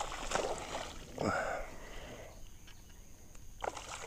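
Hooked bass splashing at the water's surface while being reeled toward the kayak, with a louder splash about a second in and a few faint clicks near the end.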